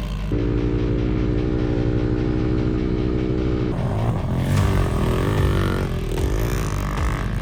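Small pit bike engines running: one holds a steady speed for the first few seconds, then from about four seconds in several engines rev up and down over each other.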